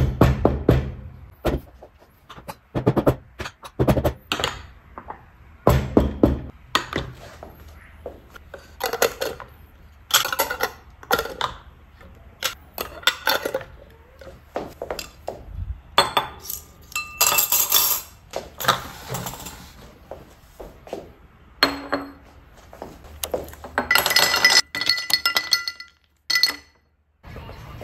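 Glass dessert jars clinking and knocking against each other, a wooden tray and a stone countertop as lids are screwed onto them, with longer scraping as the lids are turned.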